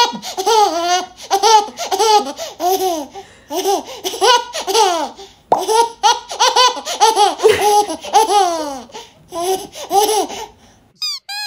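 Eight-month-old baby laughing hard in a long run of short, high-pitched bursts, a few each second, with a brief pause about halfway through.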